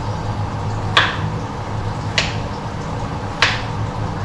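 Three sharp knife cuts on a wooden cutting board, about a second apart, as vegetables are cut by hand, over a steady low hum.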